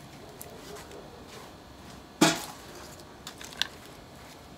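Handling noise while repotting plants: one sharp knock about two seconds in, then a couple of fainter clicks.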